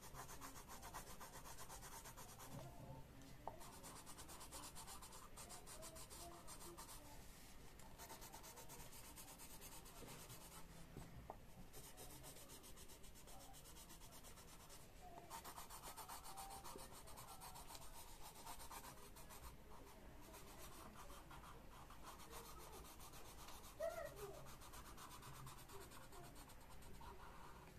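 Faint scratching of a coloured pencil on paper, in runs of strokes with short pauses between them. A single brief high-pitched sound comes near the end.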